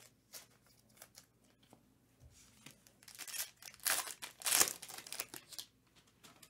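Foil wrapper of a sealed trading-card pack being torn open and crinkled by hand: faint handling clicks at first, then a run of crackly tearing from about three seconds in, loudest near the middle.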